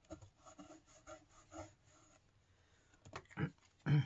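Paper and tissue rustling and crinkling as they are handled and folded by hand: a string of soft rustles, then two louder ones near the end.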